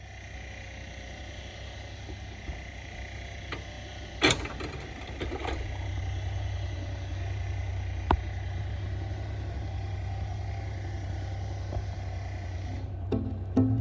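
Engine idling steadily with a low rumble, broken by a loud sharp clack about four seconds in and a smaller click about eight seconds in.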